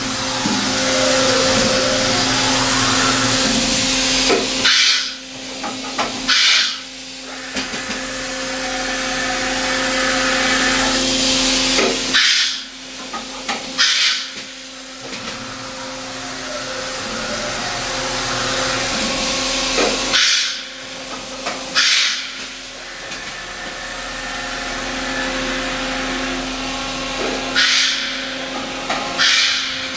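Daewoo DVC-320 vertical machining center running: a steady hiss with a low hum. Every eight seconds or so comes a pair of short sharp knocks, about a second and a half apart.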